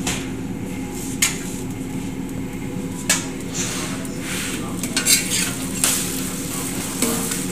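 Steel ladle scraping and clinking on a large iron tawa as oil is spread over the hot surface, with frying sizzle underneath. Several sharp metallic clinks come a second or two apart.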